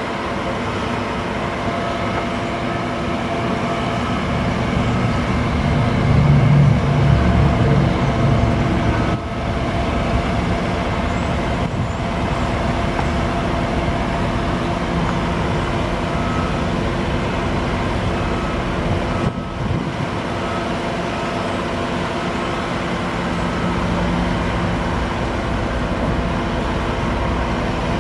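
A 2003 International 4300 bucket truck's DT466 diesel engine running steadily, driving the hydraulics while the Altec aerial boom moves, with a steady whine over the engine. The low rumble swells for a couple of seconds about six seconds in.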